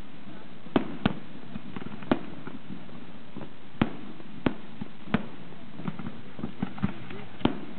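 Fireworks display: aerial firework shells bursting in about ten sharp, irregularly spaced bangs over a steady background hiss.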